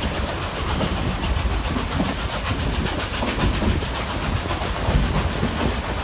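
Durango & Silverton narrow-gauge steam train running, heard from an open passenger car: a steady, even clacking rhythm over a continuous rushing noise.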